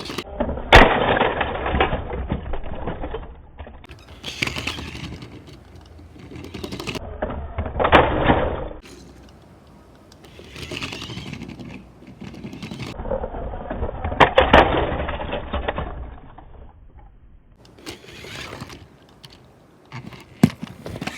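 Small toy cars clattering and scattering as a remote-control car rams into them, with sharp knocks of plastic and die-cast bodies hitting each other, in three separate bursts.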